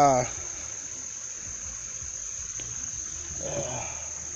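Steady, unbroken high-pitched drone of insects calling.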